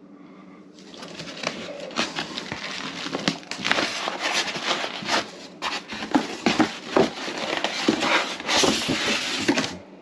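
Cardboard box flaps and a styrofoam packing insert being handled during unboxing: rustling, scraping and many small knocks, starting about a second in.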